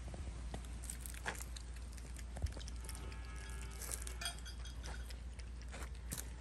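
Cats eating from an open metal sardine tin: licking and chewing, with scattered small clicks and clinks as their mouths knock the can.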